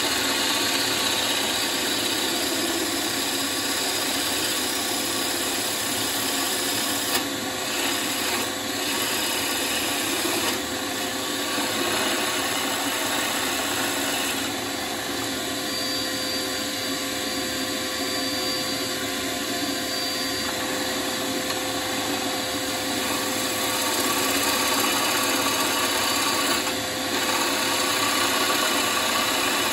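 Wood lathe spinning a wooden bowl blank while a turning tool cuts it: a continuous shaving, rasping noise over a faint steady motor hum, which briefly dips a few times as the cut is broken.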